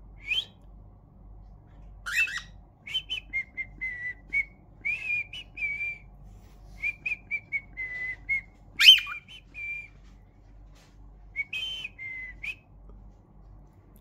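Yellow cockatiel whistling its song: runs of short, clear whistled notes at much the same pitch, broken by a few louder, sharper chirps, the loudest about nine seconds in.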